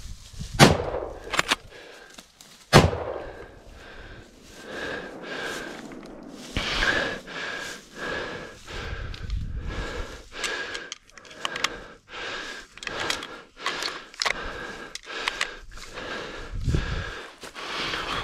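Two rifle shots from a Blaser R8 in .30-06, about two seconds apart, followed by crackling and rustling of branches and leaf litter as the hunter pushes through dense brush.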